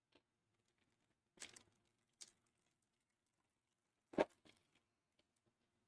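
Trading cards being handled while a pack is sorted: a few short, soft rustles and slides, with a sharper tap or slap of card stock about four seconds in.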